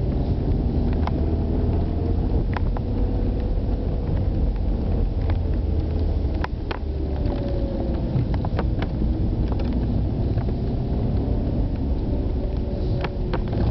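A car's engine heard from inside the cabin, revving up and down through the course's turns over a steady low road rumble, with scattered sharp clicks and knocks as it runs over broken asphalt.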